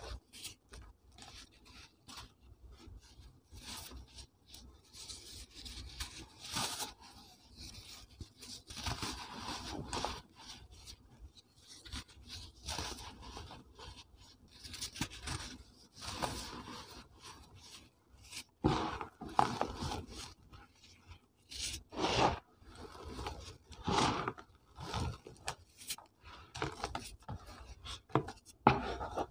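Hands rubbing, brushing and crumbling powder-coated cement blocks in a tub of loose dry powder: soft, uneven rubbing and scraping, with a few louder crumbling strokes in the second half.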